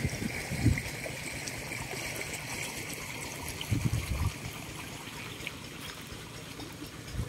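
Pumped irrigation water flowing and trickling through the furrows of a sugarcane field, a steady rush, with a few brief low rumbles.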